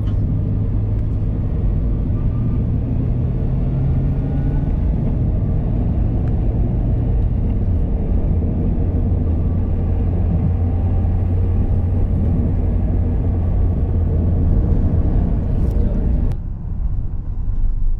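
A motor vehicle's engine and road rumble, a steady low hum whose pitch steps down a little about five to eight seconds in. About sixteen seconds in the sound changes abruptly, losing its upper hiss.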